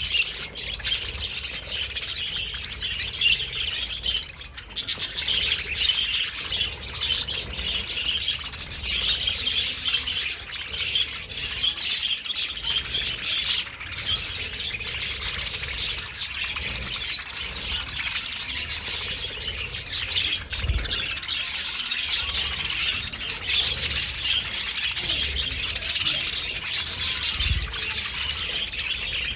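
A flock of budgerigars chattering and chirping without pause, many birds calling over one another.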